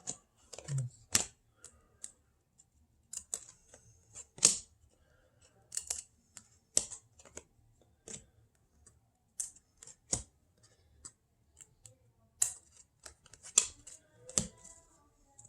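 Trading cards being flipped and slid against one another by hand: short swishes and snaps at irregular intervals, about one a second.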